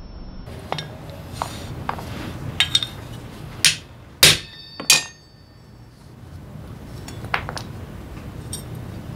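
Light metal clicks of tools on the clutch shoe pins, then three sharp hammer blows on a socket held over a pivot pin of a Honda PCX 125 scooter's centrifugal clutch shoe assembly, the last two followed by a brief metallic ring. A couple of light clinks follow near the end.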